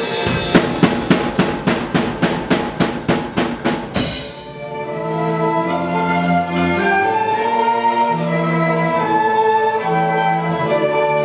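Orchestral rock music: a drum kit beats steadily, about four hits a second, over the orchestra, then stops about four seconds in, leaving strings playing long held notes over a bass line.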